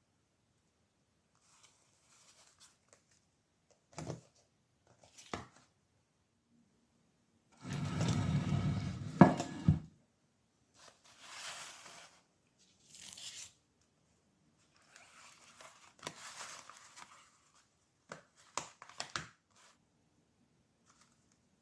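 Packaging being torn open and crinkled in a series of short separate bursts. The loudest tear comes about eight seconds in and lasts around two seconds.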